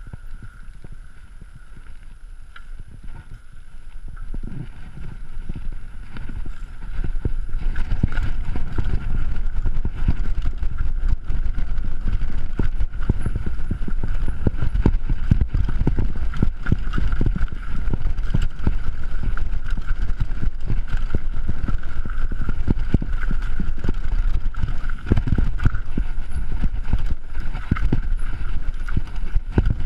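Mountain bike descending a dirt downhill trail, heard from a chest-mounted camera: wind on the microphone with a constant rattle and thudding of the bike over bumps and roots. Quieter at first, it grows louder about a quarter of the way in as the pace picks up on the dirt.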